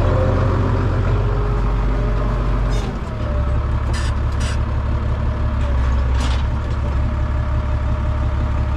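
New Holland T7 tractor engine running steadily, heard from inside the cab, its note changing about three seconds in. A few short hisses come around the middle.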